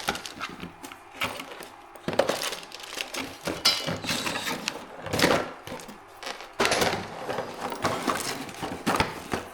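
A new soldering station being unboxed by hand: cardboard and plastic packaging opened and parts lifted out, giving irregular knocks, rattles and crinkling.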